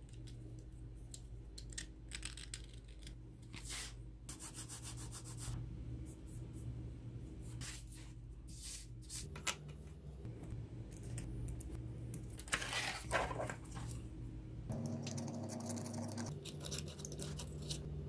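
Utility knife blade scraping and scoring lines into a small white piece, in repeated short strokes, with one longer, louder scrape about two-thirds of the way through.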